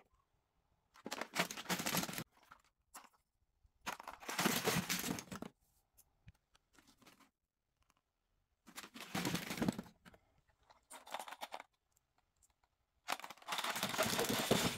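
Plastic lip gloss tubes and small plastic trinkets clattering and rattling as baskets of them are tipped into a full bin. The sound comes in five separate bursts of one to two seconds, with silence between.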